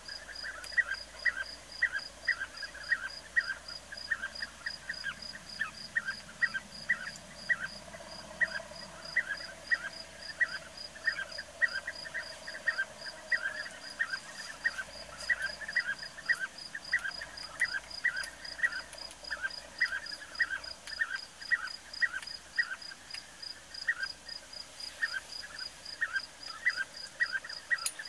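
Outdoor animal chorus: short calls repeating about twice a second over a steady, rapid, high-pitched pulsing.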